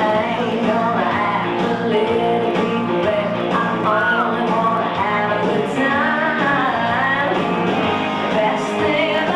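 A song being sung over an accompaniment with guitar, in a rock style, with no breaks.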